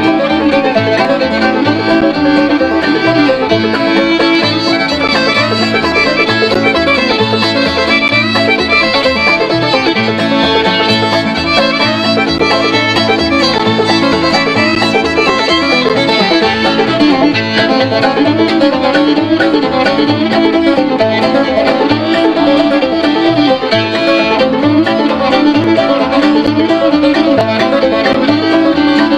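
Fiddle and open-back banjo playing an old-time tune together, the fiddle bowed over the banjo's plucked rhythm.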